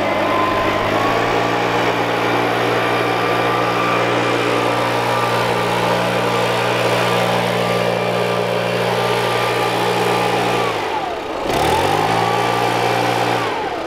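Makita four-stroke backpack leaf blower running at high throttle with a steady pitch. About eleven seconds in the revs drop away and climb back up, then fall again near the end.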